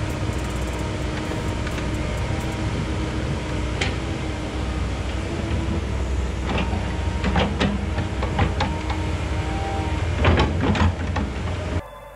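Komatsu 170 excavator's diesel engine running steadily under working load as it moves sand with its tilting bucket, with a few short knocks and scrapes from the bucket and attachment. The sound cuts off just before the end.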